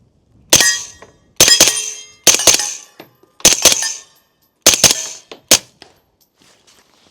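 CMMG Banshee 9mm carbine with a PTR Vent suppressor firing a string of shots about a second apart, each with a ringing clang of the bullet striking steel. The steel hits are louder than the suppressed muzzle report.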